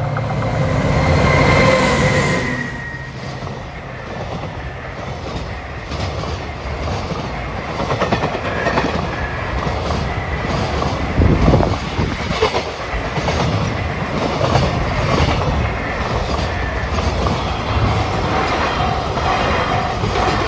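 Container freight train passing over a level crossing: the head of the train goes by loudest in the first two seconds, then a long run of container wagons clatters past with a regular clickety-clack of wheels over rail joints. The crossing's warning bell dings steadily near the end.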